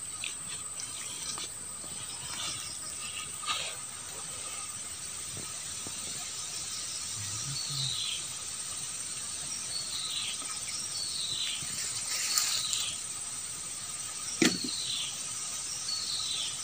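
Insects shrilling steadily at a high pitch. Short falling chirps repeat every second or two in the second half, and there are a couple of sharp clicks, the loudest about three-quarters of the way in.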